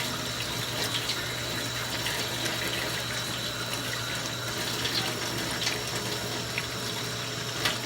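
Kitchen sink tap running steadily while hands are washed under it after handling raw sausage, with a few faint ticks and a low steady hum underneath.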